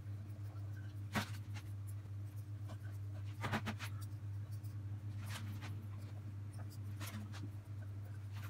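Short soft rustles and light scrapes of hands pressing pizza dough squares into a metal muffin tin, a handful of separate strokes, over a steady low hum.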